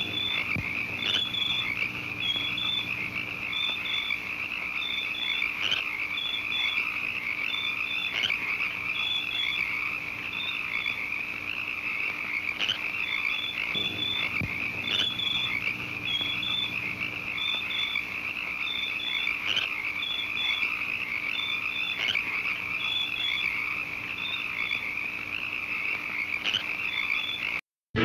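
A chorus of frogs: a dense, steady trilling with short, high peeps repeating irregularly over it, about once or twice a second.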